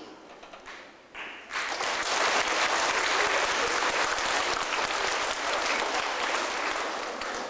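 An audience applauding in a hall, the clapping breaking out about a second and a half in, holding steady and loud, then thinning near the end.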